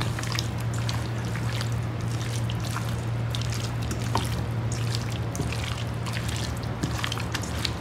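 Hands squishing and turning raw chicken pieces coated in spice paste in a stainless steel bowl: irregular wet squelches with small clicks against the bowl, over a steady low hum.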